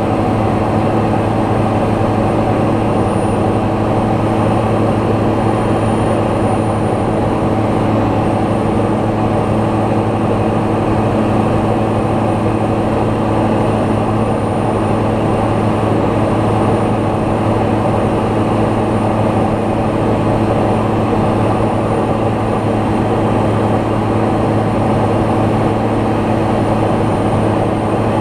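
Steady drone of a light aircraft's piston engine and propeller in flight, an even, unchanging hum with rushing noise.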